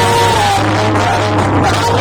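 Loud dance music blasting from a DJ sound system, with a heavy steady bass under a held melody line that steps down in pitch.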